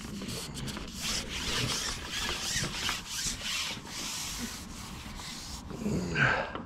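Rubbing and scraping as a fishing pole is handled close to the microphone, with hands and a fleece sleeve sliding against the pole in uneven strokes. A short, louder sound falling in pitch comes near the end.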